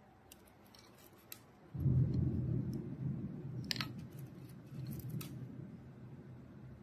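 Light clicks and taps as the small plastic-and-metal parts of an indoor TV antenna and its coax cable are handled. From about two seconds in a low rumbling noise comes in and slowly fades, with a few more sharp clicks over it.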